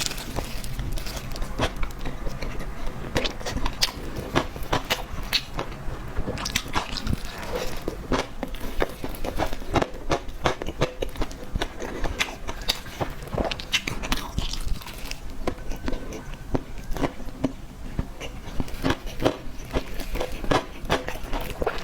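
Close-miked eating of cake: chewing and biting in an irregular run of many small clicks and smacks, several a second.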